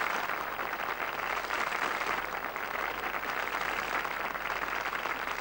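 Studio audience applauding, a steady wash of many hands clapping.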